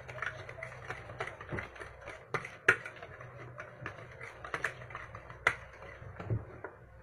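Irregular light clicks and taps of a kitchen utensil knocking against a mixing bowl while thick puto batter is stirred and lifted.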